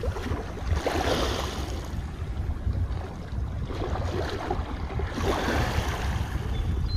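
Wind rumbling on the microphone over water, with three swelling washes of water noise, as of small waves lapping against a boat.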